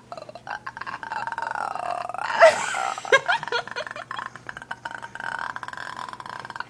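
A girl making a long funny noise with her mouth and throat. It is a held, rattly tone that dips in pitch and comes back about two seconds in. Near the middle there is one sharp louder burst, followed by a few clicks.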